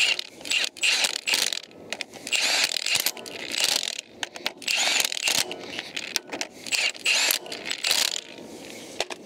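Hand ratchet with a 19 mm socket clicking in repeated strokes as the bolts are tightened one after another in a star pattern.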